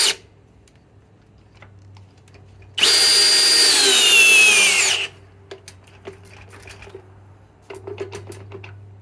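Cordless drill driver driving a large lag screw into wood: a brief burst at the start, then about two seconds of loud motor whine whose pitch sinks steadily as the drill bogs down under the load, followed by small clicks and knocks.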